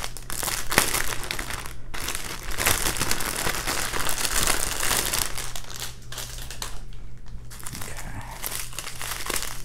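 Clear plastic bag of diamond painting drill packets crinkling as hands turn it over and work the packets loose, a dense crackle that dips briefly about two and seven seconds in.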